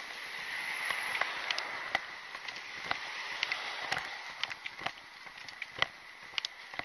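Footsteps on a concrete sidewalk, a sharp step about once a second, with a car passing on the road beside in the first few seconds.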